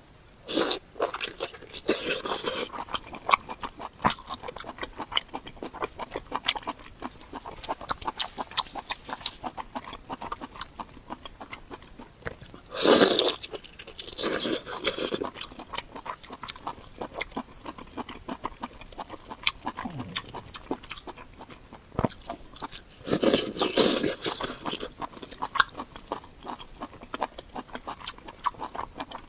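Close-up chewing and crunching mouth sounds of someone eating, with many small wet clicks. Louder bouts of biting and crunching come about a second in, twice around the middle, and again a few seconds before the end.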